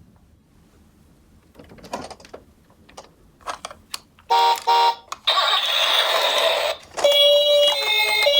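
A few light clicks, then two short electronic beeps and a second-long burst of hiss; about seven seconds in, a toy ambulance's electronic siren starts, a steady high warbling tone.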